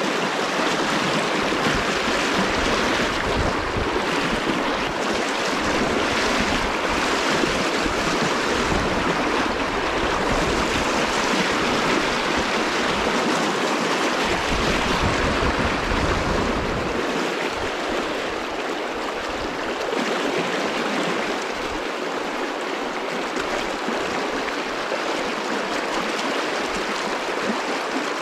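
Fast, shallow river water rushing over stones around a wading angler, a steady hiss. An uneven low rumble sits under it for about the first seventeen seconds.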